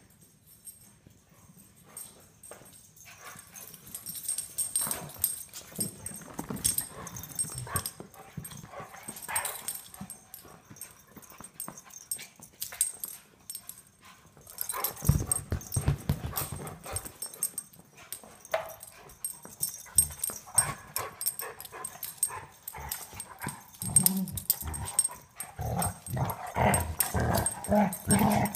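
An English pointer and an Italian greyhound puppy play-fighting: dog play noises and scuffling, getting busier and louder in the last few seconds.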